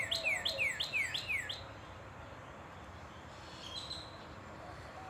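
A bird calling a rapid series of about six downward-slurred chirps, stopping about a second and a half in.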